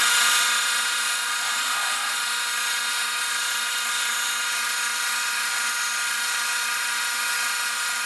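Grizzly G0602 metal lathe running with the chuck spinning, a steady whine from its motor and drive.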